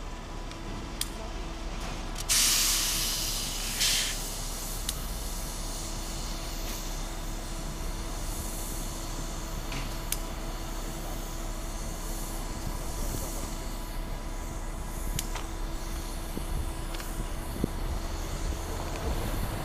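CSX Geep diesel-electric locomotives rumbling at low power as they creep through the yard. About two seconds in, a loud burst of hissing air lasts under two seconds, and a few sharp metallic clicks come later.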